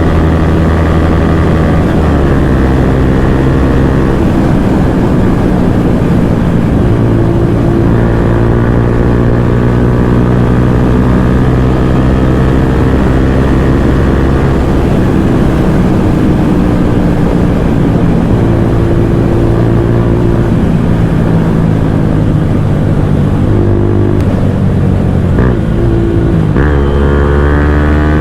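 Bajaj Pulsar N160's single-cylinder engine running through an aftermarket full-system exhaust while riding, its note holding steady for a few seconds at a time and shifting in pitch several times, then climbing sharply near the end.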